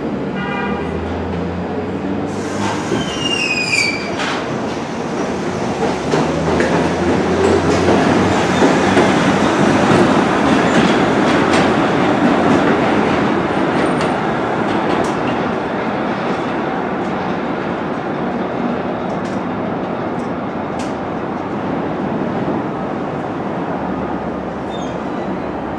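New York City Subway R62-family 1 train running on the elevated steel track with a steady rumble and clatter, loudest about ten seconds in as it comes into the station. A few short falling high squeals sound about three seconds in.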